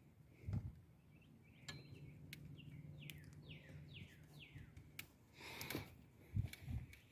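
A bird singing a run of about five quick descending chirps in the middle, with a few short thumps and clicks around it.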